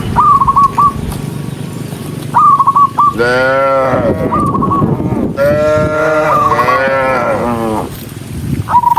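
Cattle mooing: two long, drawn-out moos, the second the longer. Short, higher-pitched calls of three or four quick notes are repeated about every two seconds between them.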